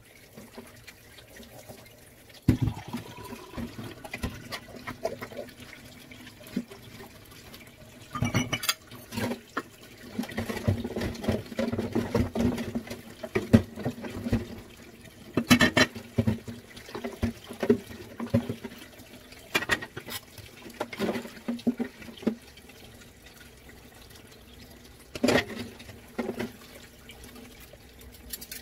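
Dishes being washed by hand in a sink of dishwater: water splashing and running, with irregular clinks and knocks of dishes and utensils. A faint steady hum runs underneath.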